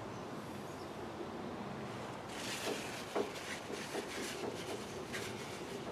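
Soft rustle of a paper towel wiping a diesel engine's roller cam follower, in two spells about two seconds in and near the end, with a light click in between.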